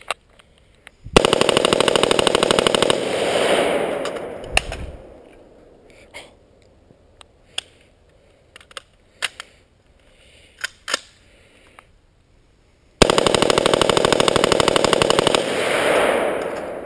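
AR-15 rifle with a Slide Fire SSAR-15 bump-fire stock firing two long rapid bursts, about two seconds each, the shots coming evenly spaced like automatic fire, each burst trailing off in a fading echo. Scattered single clicks and knocks fall in the pause between the bursts.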